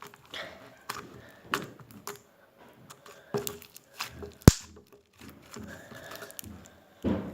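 Crunchy slime being squeezed and pressed, crackling and popping in irregular clicks, with one loud sharp pop about four and a half seconds in.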